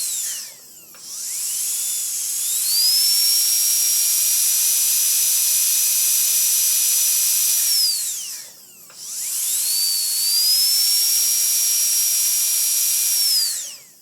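Dentist's drill whining at a high pitch over a hiss. It winds down just after the start, spins back up and holds steady, winds down and spins up again about eight seconds in, then winds down near the end.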